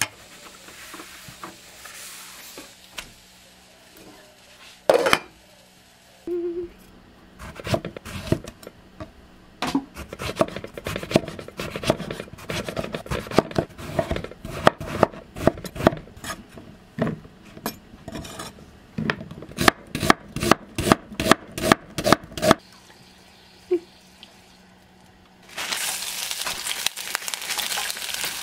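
Cleaver chopping eggplant on a wooden cutting board: a long run of knocks, ending in an even series of about three chops a second. After a short pause, chopped green onions start sizzling in oil in a wok.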